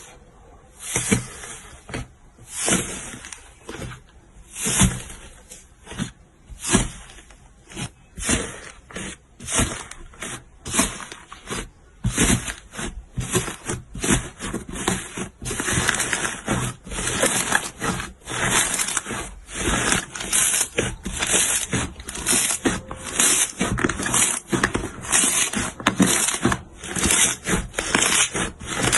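Slime being squeezed and pressed by hand, a series of short crackling squishes, about one a second at first and coming faster and closer together from about halfway through.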